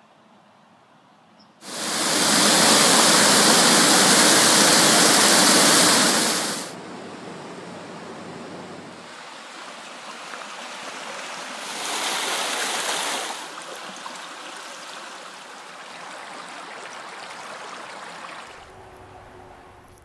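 Creek water rushing, loud and close for about five seconds after a quiet start. It then settles into a steadier, softer rush, with a louder stretch about twelve seconds in, and drops lower near the end.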